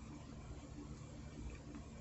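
Faint outdoor background: a low, uneven rumble with a couple of faint, short high chirps.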